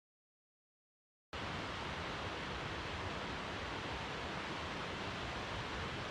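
Silence, then a little over a second in a steady rushing noise starts abruptly and holds evenly.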